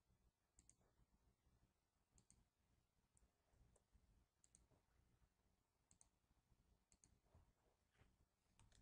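Near silence with faint computer-mouse button clicks, several of them in quick pairs, every second or so.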